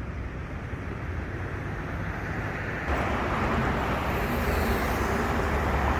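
Road traffic noise from passing cars, a steady rush with low rumble that gets louder about three seconds in.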